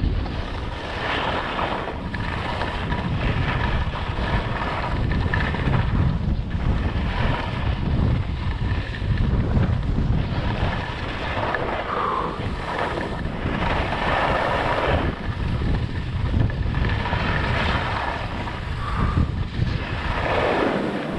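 Wind buffeting a skier's camera microphone at speed, with skis hissing and scraping over snow in turns that swell every few seconds.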